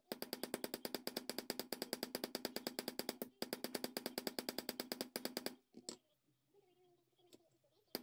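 Small hammer tapping fast and lightly, about eight taps a second, peening the pivot pin of a straight razor's new wooden scales on a steel block, with a faint metallic ring under the taps. The tapping breaks briefly a little past three seconds in and stops about two-thirds of the way through.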